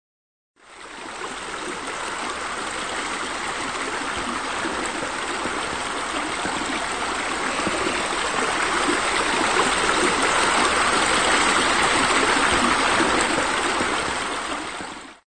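Steady rush of running water, fading in shortly after the start, growing slightly louder later on and stopping just before the end.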